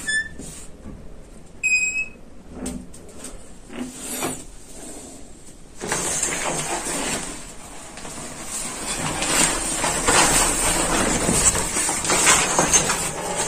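A door hinge squeaks briefly twice, then from about six seconds in a shower curtain rustles and scrapes as it is pushed aside and handled.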